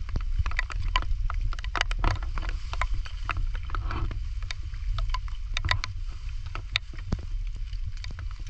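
Feet squelching and splashing through wet mud and shallow water while rain falls, with many sharp, irregular clicks over a steady low rumble.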